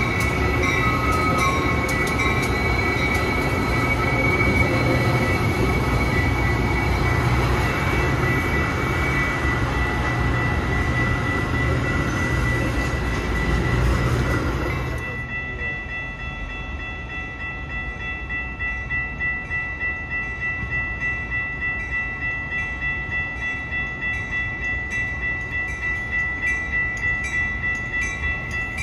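Metra commuter train passing at close range: loud rumble and rail noise with a steady high-pitched tone. About halfway through, the sound drops to a quieter scene where the tone continues under a regular pulse about twice a second.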